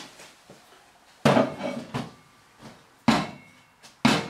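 Tools being handled on a hard top: three sharp clunks, about a second in, about three seconds in and near the end, as the diamond core bit is set down and the hammer drill is picked up.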